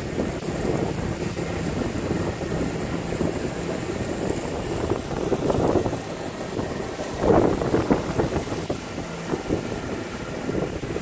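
Motorboat under way across choppy, wind-blown water: a steady rush of engine, wind and water. Spray and waves splash against the hull in irregular surges, the loudest about seven seconds in.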